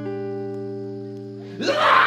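Background music holding a steady chord. About one and a half seconds in, a toddler's loud, high-pitched squealing laugh breaks in over it as he is startled.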